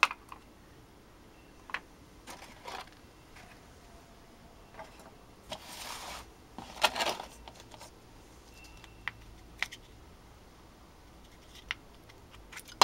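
Scattered light clicks and knocks of hardened resin orgonite pieces being handled and set down, with a brief scraping rustle near the middle and a cluster of louder knocks just after it.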